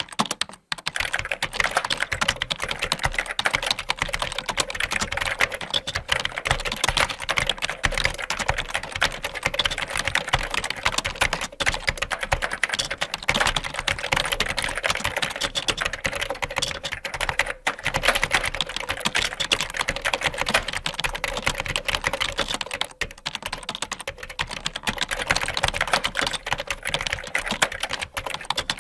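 Fast typing on a computer keyboard: a rapid, continuous stream of key clicks, with a few brief pauses.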